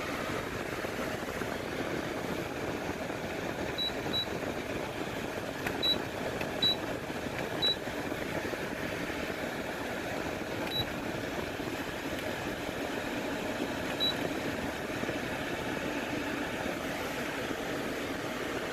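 Noma 50-pint dehumidifier running with a steady fan hiss, while its control panel gives seven short, high beeps as buttons are pressed, spread between about four and fourteen seconds in.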